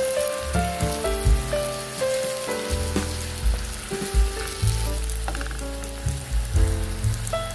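Chicken breast pieces sizzling in hot oil in a nonstick frying pan, with a few scrapes as a wooden spatula stirs them. Background music with bass notes plays over it.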